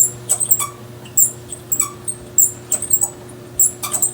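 GE clothes dryer running with a steady hum and sharp, high-pitched squeaks repeating roughly twice a second, unevenly spaced. It is a drum-drive squeak that the owner traces to a worn part and cures by replacing the belt.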